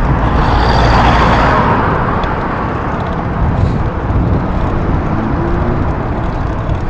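City road traffic, with a vehicle going past about a second in, over a steady low rumble of wind on the microphone of a camera mounted on a moving bicycle.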